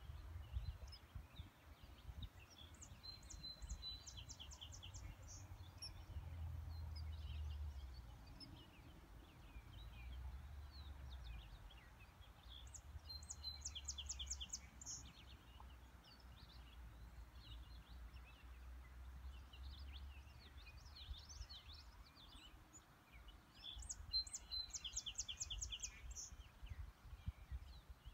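Songbirds singing faintly: scattered chirps, and one bird repeating the same short song three times about ten seconds apart, a brief note followed by a fast trill. A low rumble rises and falls underneath.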